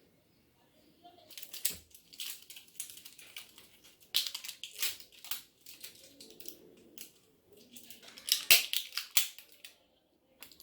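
Plastic packaging of finger-paint pots being opened: irregular scratchy rustling, crinkling and clicks, with a couple of sharp clicks near the end.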